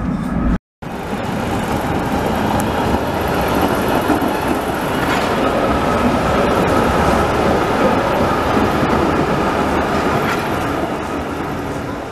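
Old green Basel tram rolling past on street rails: a steady running noise of wheels and motors mixed with city street noise. About half a second in, on-board tram noise cuts off in a brief gap before it begins.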